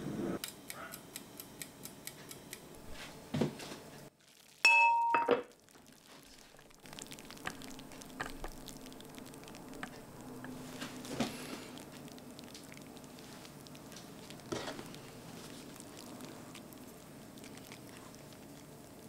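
Kitchen pot sounds: a quick run of light ticks, then a short, loud ringing clang about five seconds in. After that come a few soft clinks and rustles as a cooked pot of rice is handled.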